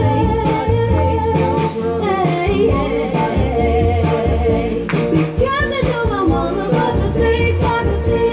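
A woman singing an upbeat pop song over electronic keyboard accompaniment with a steady bass line and beat.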